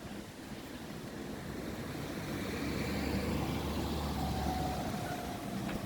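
A motor vehicle passing by on a road, its engine sound growing louder and then fading away.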